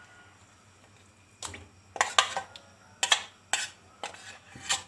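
A metal spoon knocking and scraping against a bowl and the metal karahi, about seven sharp, irregular clinks starting about a second and a half in, as ginger-garlic paste is scooped into the pan.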